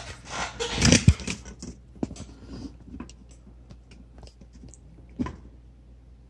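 Handling noises on a workbench: rubbing and scattered clicks, loudest about a second in, then a single sharp knock a little past five seconds.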